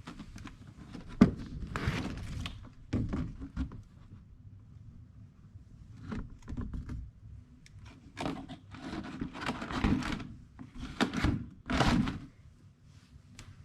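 Handling noises: a sharp knock about a second in, then irregular knocks, scrapes and rustles in bursts, as of pots, buckets or other gear being moved and set down.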